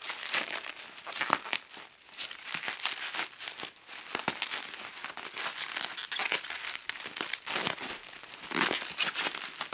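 Plastic bubble wrap crinkling and rustling in irregular crackles as it is pulled and unrolled by hand from long lightsaber blades.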